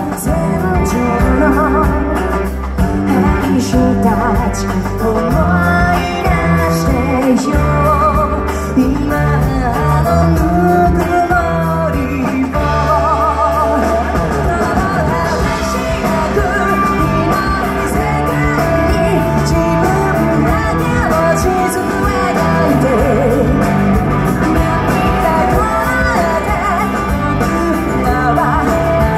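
Live rock band playing: a woman singing over electric guitars, bass and drums, amplified through the PA and heard from among the audience.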